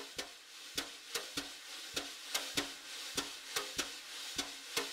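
Crackling clicks over a faint hiss, the clicks coming irregularly in a loose pattern that recurs about every second.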